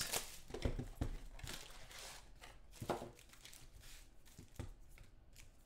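Foil-wrapped trading-card packs being handled and set down on a table: crinkling of the wrappers with scattered taps and knocks, the loudest about a second in and near three seconds in.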